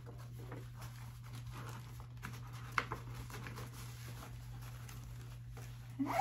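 Light rustling and small clicks of craft supplies (floss, fabric and packaging) being handled, with one sharper click about three seconds in, over a steady low hum.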